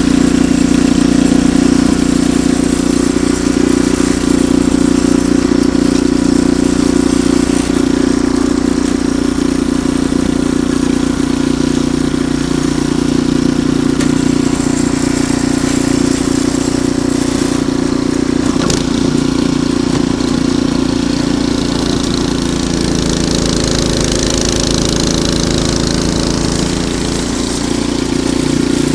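Ariens Deluxe 28 snowblower engine running steadily, with a single brief click about two-thirds of the way through.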